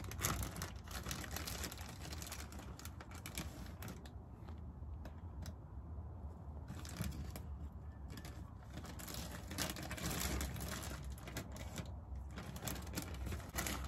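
A plastic freezer bag holding loose steel needle roller bearings being handled and moved about, giving a run of small, irregular clicks and rustles.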